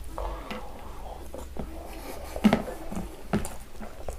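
Mouth sounds of a person chewing a handful of rice: a series of short clicks and smacks, the loudest about halfway through.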